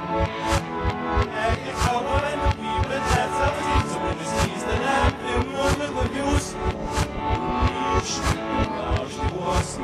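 Live band music: electric guitar and keyboard over a steady, fast low drum beat, with voices singing nonsense-syllable lyrics.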